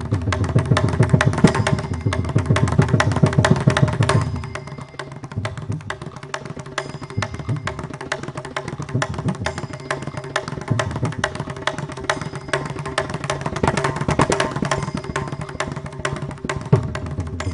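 Mridangam played solo in a Carnatic percussion solo, in rapid continuous strokes. Deep bass strokes ring out for the first four seconds or so, then the playing turns to lighter, quicker strokes on the right head.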